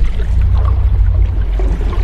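Sea waves washing continuously, with a deep steady rumble under a fizzing, splashing wash of water.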